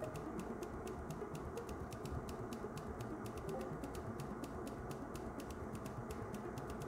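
Steady whir of a bench fume extractor fan, with a quick, uneven run of light ticks, several a second.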